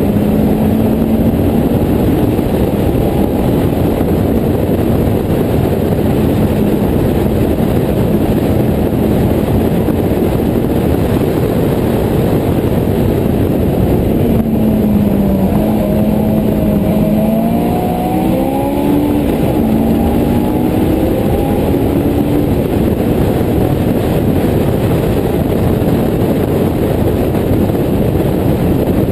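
Onboard sound of a Westfield clubman racer with a Honda S2000 four-cylinder engine at racing speed, mostly wind rush over the open cockpit. About halfway through, the engine note drops as the car slows for a corner, then climbs again as it accelerates out.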